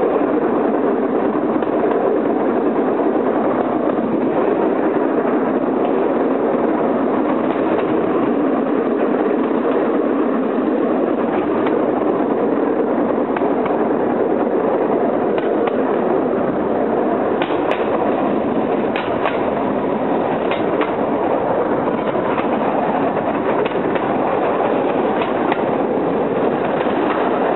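Steady running noise of a norry, a Cambodian bamboo-platform rail cart, travelling along the track, with a few sharp clicks about two-thirds of the way through.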